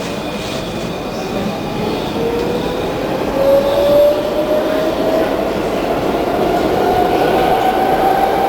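Brussels metro train accelerating: a rising whine from its electric drive over the steady rumble of the running train, growing louder as it picks up speed.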